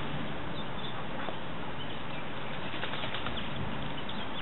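Hen mallard bathing: splashing water and flapping wings, with a quick run of splashes in the second half, over a steady background hiss.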